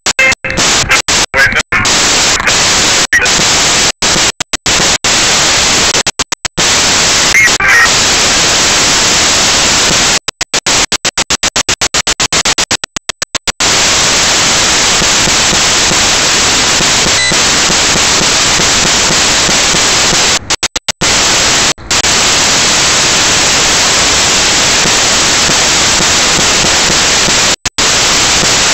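Loud, even static hiss on a mini camera's audio track, cutting out abruptly to silence many times, with a dense run of dropouts about ten to thirteen seconds in and a few more around twenty-one seconds.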